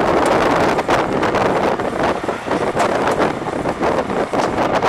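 Wind buffeting the microphone, fluttering unevenly over a steady rumble of vehicle traffic.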